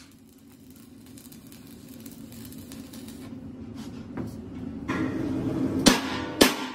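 Hammer striking the fresh weld seam of a steel air compressor tank to chip off slag: two sharp metallic strikes about half a second apart near the end, with the tank ringing after them. Before the strikes a steady workshop noise grows gradually louder.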